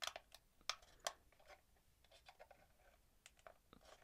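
Faint clicks and scrapes of side-skirt armour plates being pushed down onto the plastic tabs of a diecast model tank, a few sharper clicks in the first second or so and lighter ticks later.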